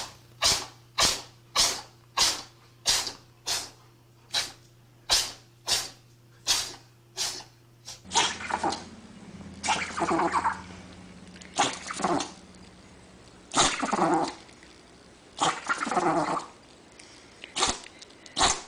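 A pet sneezing in a fast, even run, about thirteen sneezes in the first eight seconds. Then a few more irregular sneezes follow, with a short cry falling in pitch near the end.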